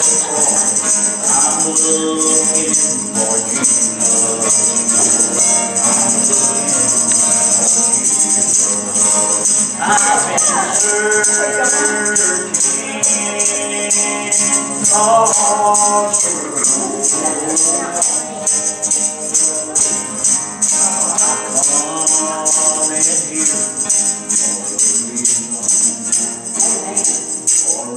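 Gospel song: an acoustic guitar strummed, a tambourine shaken and struck in a steady rhythm, and voices singing along.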